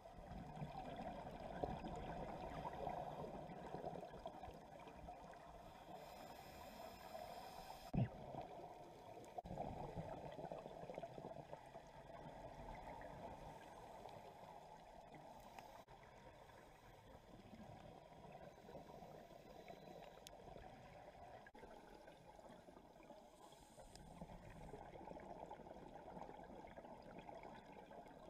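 Faint, muffled underwater noise of scuba diving heard through a camera's waterproof housing: regulator breathing and bubbling that swells and eases, with a single sharp knock about eight seconds in.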